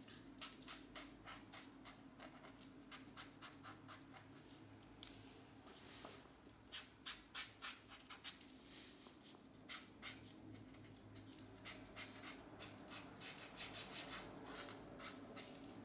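Felt-tip markers stroking across the paper of a colouring book: faint runs of short, quick back-and-forth scratchy strokes with brief pauses between them.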